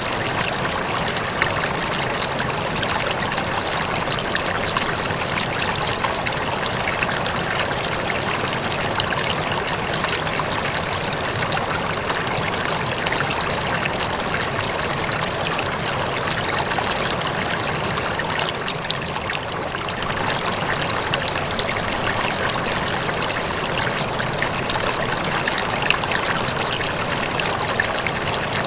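Aquarium water trickling and splashing steadily, the constant running-water noise of the tank's circulation.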